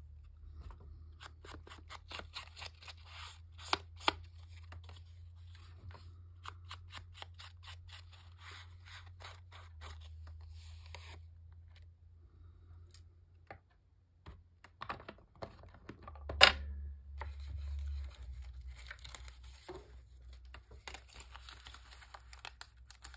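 Edges of a paper tag being inked against a Distress Oxide ink pad: a quick run of short scuffing, dabbing strokes for the first ten seconds or so. One sharp click comes about two-thirds of the way through. Near the end a paper hole-reinforcer sticker is peeled off its sheet with a scratchy rustle.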